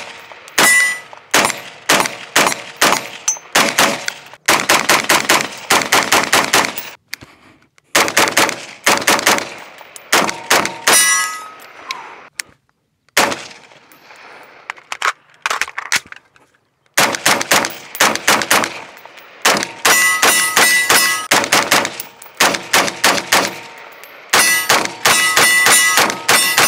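AR-15 rifle in 5.56 fired semi-automatically in rapid strings of shots with short pauses between them. In several strings, especially the last few, hits on steel targets leave a metallic ringing between the shots.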